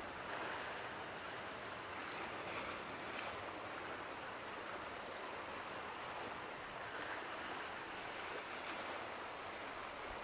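Steady wash of ocean surf on a beach.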